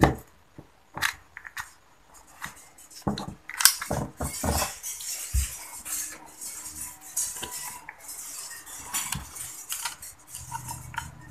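Metal tools clicking and scraping against a Yamaha Autolube two-stroke oil pump as a part of its body is pried up, first with a utility-knife blade and then a flat screwdriver. There are a few sharp clicks in the first few seconds, then a stretch of light, high-pitched scraping.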